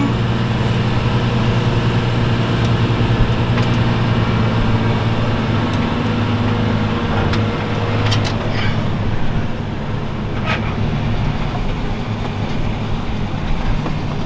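Engine of a large farm machine running steadily at constant speed, a continuous low drone with a few faint clicks or rattles.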